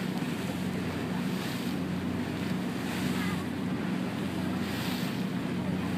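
Water bus under way: a steady low engine hum, with water rushing past the hull and wind buffeting the microphone.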